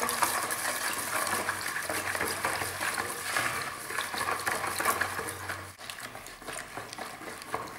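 Water poured from a plastic tub into a bucket of animal-glue granulate while a wooden spoon stirs it, to dissolve the glue; the pouring stops about six seconds in and the stirring carries on.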